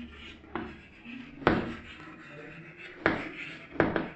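Chalk on a blackboard while words are written: a few sharp taps as the chalk strikes the board, the strongest about a second and a half, three and four seconds in, with light scratching between them.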